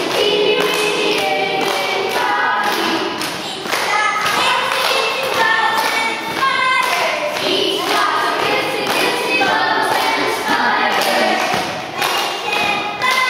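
A group of young boys singing a song together, with hand claps and thumps keeping time.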